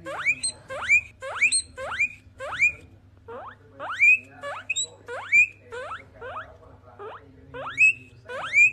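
Guinea pigs wheeking: a rapid run of short, high squeals that each rise sharply in pitch, about two a second, with a brief lull partway through.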